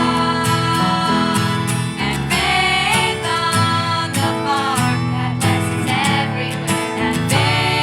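Music: a song with strummed acoustic guitar and singing.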